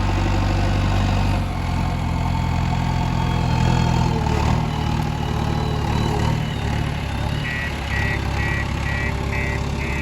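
A JCB 3DX backhoe loader's diesel engine is running, its pitch shifting a few times as the revs change. About three quarters of the way in, a steady electronic beeping starts, about two beeps a second.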